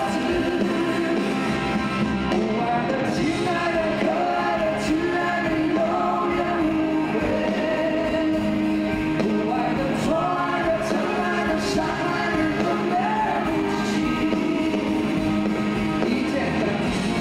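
Live pop-rock song: two male singers sing over a 12-string acoustic guitar and an electric guitar with band backing.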